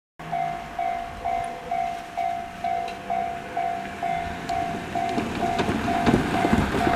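Electronic level-crossing alarm in the JR standard sound, pinging about twice a second, each ping fading quickly. From about four and a half seconds a rumble with sharp clicks grows louder under it as a train approaches.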